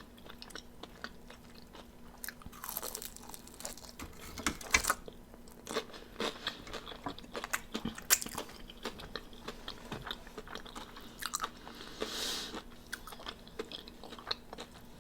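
A person chewing and biting into crispy fried chicken wings close to the microphone: irregular crunches and mouth clicks.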